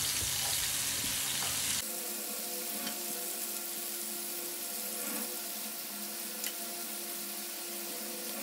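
Chicken livers sizzling in hot oil in a nonstick frying pan, turned over with tongs, with a few light clicks of the tongs against the pan.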